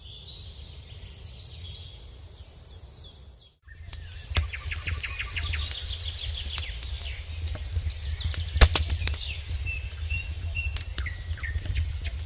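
Birds chirping. After about three and a half seconds, a wood fire in the firebox of a brick smokehouse crackles with many sharp pops over a low steady rumble, and the birds keep chirping.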